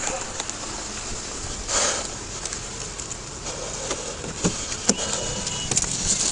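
Footsteps and the rustle of clothing and gear against a police body-worn camera's microphone as the wearer moves. There is a brief louder rustle about two seconds in, and a few small clicks and knocks near the end.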